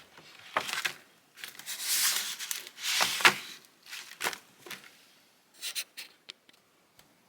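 Dry birch bark being handled: papery crinkling and scraping in a series of short, irregular bursts, ending in a few light taps.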